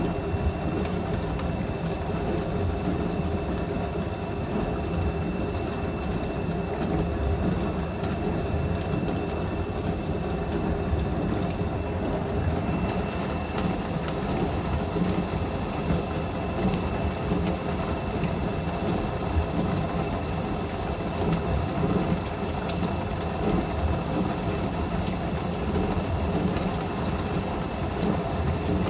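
Dishwasher running mid-wash: water swishing and spraying inside over a steady pump hum, with a faint high tone held throughout.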